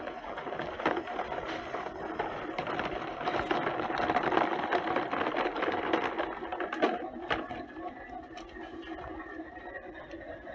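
The small electric motor and plastic gears of a toy construction vehicle whirring steadily, with scattered clicks and knocks.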